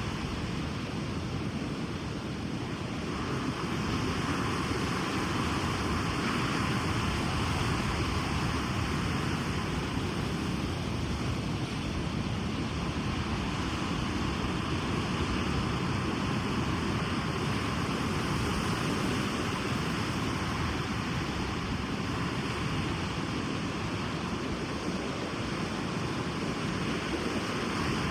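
Ocean surf: waves breaking and washing onto a beach as a continuous rush, swelling slightly about three seconds in.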